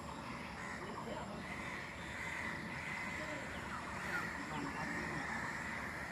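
Outdoor morning ambience: birds chirping and calling, some in short quick notes, over a steady high background chorus and a faint murmur of distant voices.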